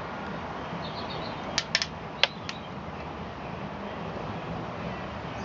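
A few sharp, light clicks, small metal parts of a drive shaft and pin tool being handled, over a steady background hiss.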